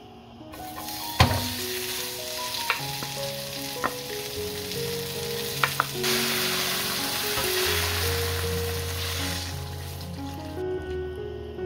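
Seasoned dried radish greens and onions sizzling in a wok, with a few sharp knocks. From about six seconds in, rice-washing water poured over them makes a louder steady rush, which stops near the end.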